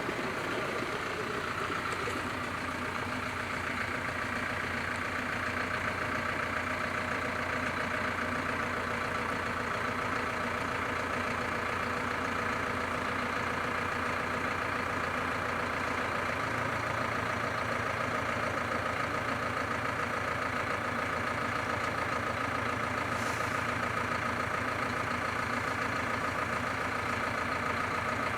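Level crossing warning bell ringing continuously with a fast repeat, over a low steady hum that grows louder about halfway through.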